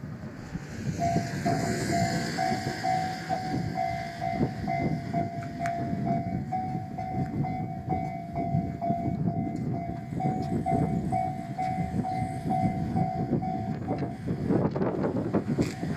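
Level-crossing alarm bell ringing in a steady pulse, about two dings a second, stopping about 14 seconds in, over the rumble and wheel clatter of a diesel railcar running over the crossing.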